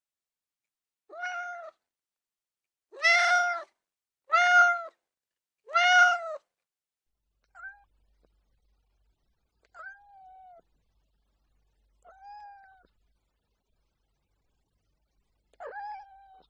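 A domestic cat meowing repeatedly, with about eight separate meows. Four loud ones come in the first six seconds, then four fainter, shorter ones follow about two seconds apart.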